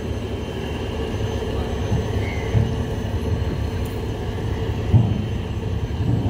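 Heavy vehicle engines running with a steady low rumble, and a single knock about five seconds in.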